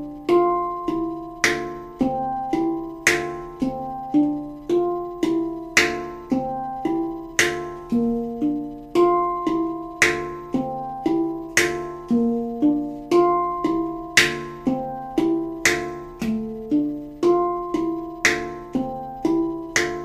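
Handpan played slowly in a steady eight-count pattern: ringing thumb and index-finger notes on the tone fields, with slappy, percussive strikes near the rim on the fifth and eighth counts. The bass note on the first count steps lower through the pattern, from high to low.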